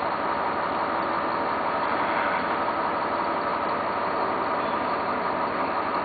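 1990 GMC TC7 boom truck's engine running steadily.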